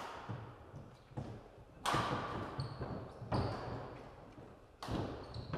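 Badminton rally: racket strings hitting the shuttlecock four times, about a second and a half apart, each hit echoing in the hall, with short shoe squeaks and footfalls on the court floor between shots.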